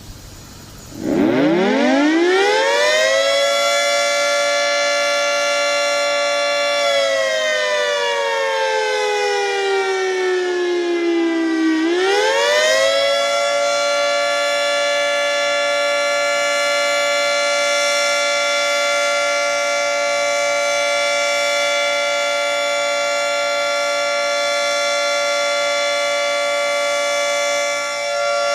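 Outdoor warning siren winding up over the first few seconds to a steady tone with many overtones. From about seven seconds in it winds down partway, and at about twelve seconds it winds back up and holds a steady pitch.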